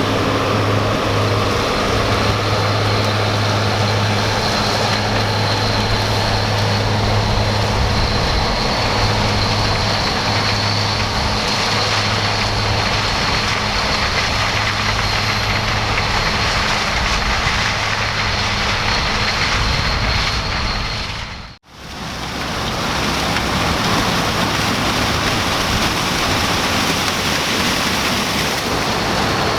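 New Holland CR 9070 combine harvester threshing maize: a steady heavy machine drone with a low hum and a thin high whine over it. The sound fades out briefly about twenty-one seconds in and comes straight back.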